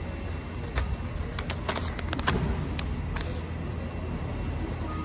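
Plastic snack bags crinkling and clicking as they are handled and swapped on a digital scale, over a steady low machine hum. The clicks bunch up in the first three seconds.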